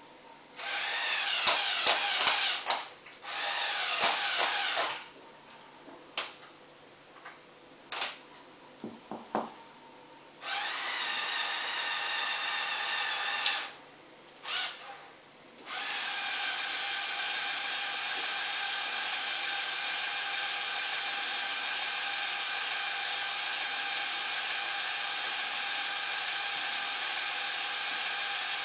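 Small electric motors in a Lego Technic model of a UNIC URW-094 spider crane, running through plastic gears as the outrigger legs unfold. The whine comes in several short runs of a few seconds with a few clicks between them, then runs steadily through the second half.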